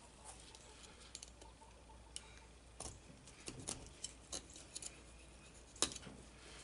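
Faint scattered clicks and light taps from a knife and gloved hand handling a longnose gar on a plastic cutting board, with one sharper click near the end.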